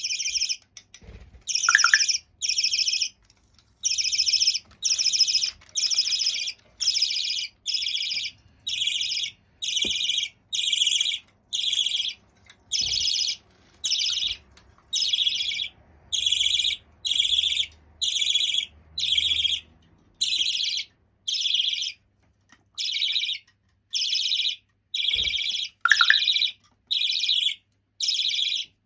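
Half-jumbo budgerigar chick calling over and over, about one shrill call a second, each call roughly half a second long.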